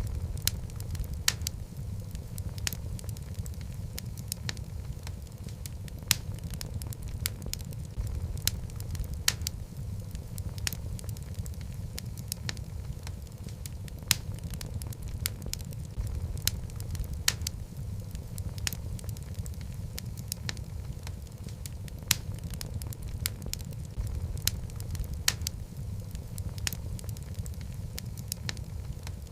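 Wood logs burning in a fireplace: a low, steady rumble of flame with irregular sharp crackles and pops, several in a second at times.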